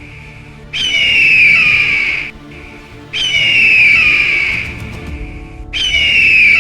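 A bird of prey screaming: a long, hoarse, downward-sliding scream repeated three times, about two and a half seconds apart.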